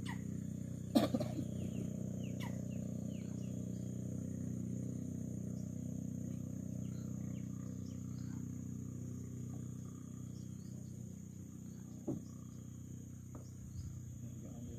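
Outdoor animal and insect chorus: a steady low drone under a constant high insect buzz, with many short falling chirps. A few sharp clicks stand out, the loudest about a second in.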